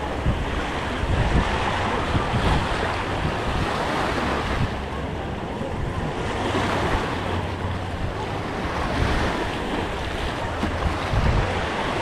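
Small waves washing onto a sandy shore, mixed with wind noise on the microphone.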